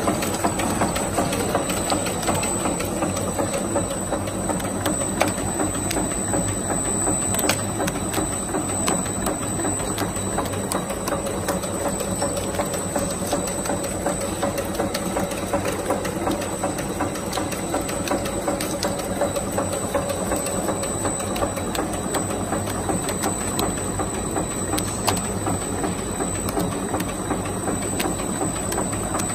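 Chewing gum production-line machinery running steadily: a dense, fast mechanical clatter over a low hum, with a thin, steady high-pitched tone throughout.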